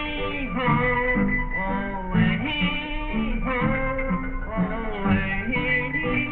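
Cartoon soundtrack music: a lively tune on plucked strings with other instruments, notes changing quickly.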